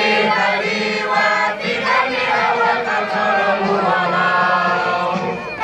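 A crowd of men singing together in unison, many voices at once, in a continuous chant-like song.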